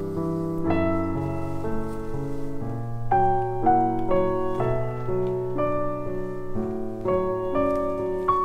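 Background piano music: a slow melody of sustained notes over held lower notes.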